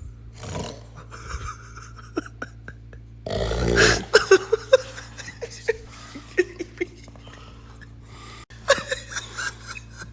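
A drunk man snoring: one loud rasping snore about three seconds in, followed by a run of short sharp throat noises, and another snore with clicking throat sounds near the end.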